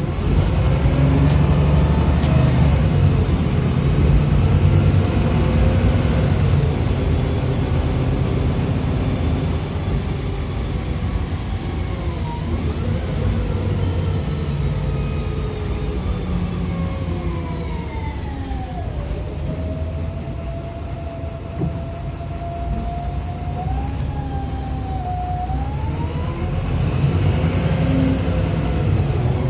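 Wright Pulsar bus on a VDL SB200 chassis under way, heard from inside: a steady low diesel engine rumble with a whine from the Voith automatic drivetrain that glides up and down with road speed. It falls in pitch through the middle, holds steady for a few seconds, then climbs again near the end.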